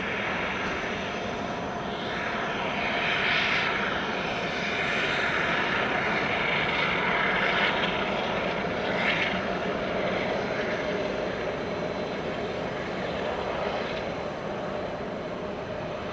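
Jet engines of an Airbus A330-300 running at taxi power as the airliner rolls past: a steady jet rumble with a high whine. It swells louder through the middle and eases off toward the end.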